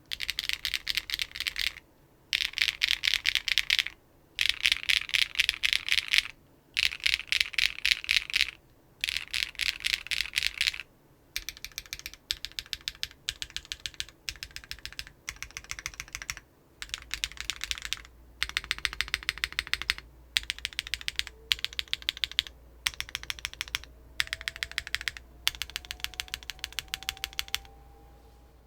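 Typing on a custom keyboard fitted with Keygeek Orange Boi linear switches on a carbon fiber plate with no foam. The sound is a high-pitched clack, coming in bursts of fast keystrokes with short pauses between them, softer in the second half.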